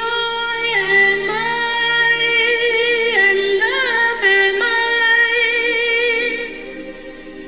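A woman singing slow, long-held notes, gliding between some of them with a little vibrato, over a low sustained accompaniment.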